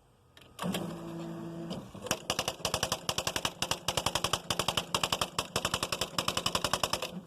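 Smith Corona Mark XV electronic typewriter printing its self-demonstration: a short motor whir, then a fast, even run of type strikes at about eight a second, with the whir returning at the end of the line.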